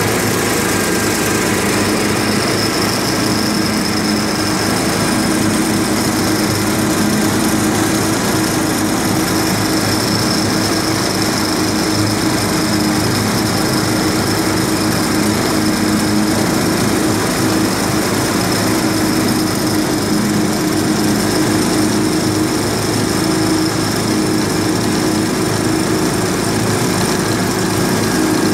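Amphibious vehicle's engine running steadily while the vehicle moves under its own power across the water, a continuous drone with a high whine above it.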